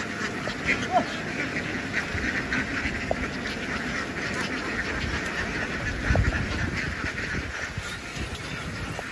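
A large flock of domestic ducks quacking all together, a dense, continuous mass of overlapping calls, with a low thud about six seconds in.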